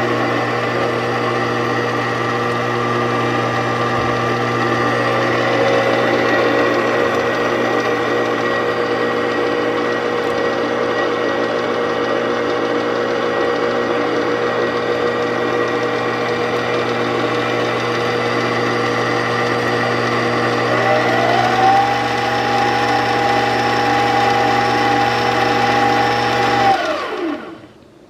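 Farberware 4.7-quart stand mixer's electric motor running steadily with a hum and whir. About 21 s in, a higher whine rises and holds. Near the end the motor is switched off and winds down to a stop.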